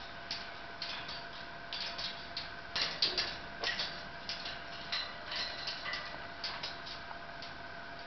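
Quick, irregular clicking from a Maximilian's pionus parrot in its metal cage, coming in small clusters of several clicks a second, loudest about three seconds in.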